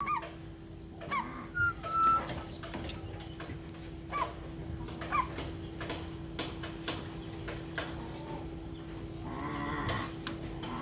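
Mynah bird calling: a series of short whistles that drop in pitch, two level whistles about a second and a half and two seconds in, clicks, and a raspy, throaty call near the end.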